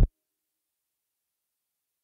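A music track cuts off abruptly at the very start, followed by dead digital silence.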